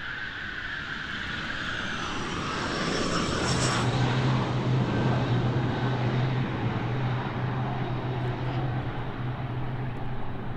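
Mirage 2000 fighter jet's single SNECMA M53 turbofan running at high power on its takeoff run. A whine slides down in pitch over the first seconds, then the jet noise grows louder and steady, with a low hum underneath from about three and a half seconds in.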